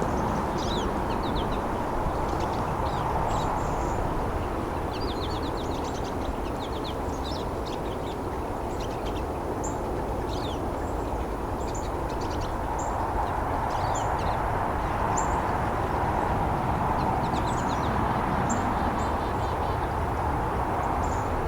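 A small mixed finch flock, pine siskins among them, giving short high calls and twitters scattered throughout, over a steady rush of running water.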